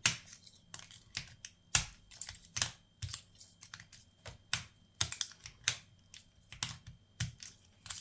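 Irregular sharp clicks and small scrapes of a thin steel bypass shim, a Sparrows Shank, working inside a clear acrylic practice padlock as it tries to pull back the shackle latch. The tool taps against the lock and catches on its parts, without the lock coming open.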